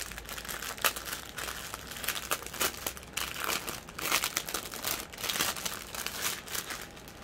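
Clear plastic wrapping around a bundle of small bags of diamond-painting drills crinkling as hands turn it over and squeeze it, in quick irregular crackles.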